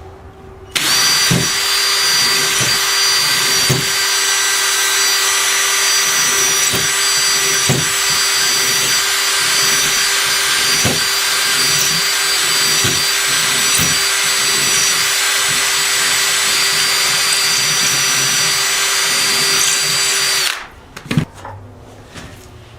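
Electric drill running steadily for about twenty seconds, boring test holes through sheetrock just above the baseboard to find a wall stud, with light knocks now and then. It stops suddenly near the end, followed by a couple of small knocks.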